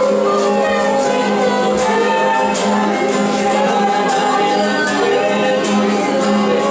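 A congregation singing spontaneous worship together, led through microphones, over a steady sustained low note.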